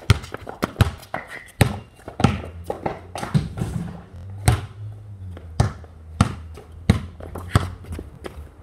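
Basketball being dribbled, a sharp bounce roughly every half second to a second.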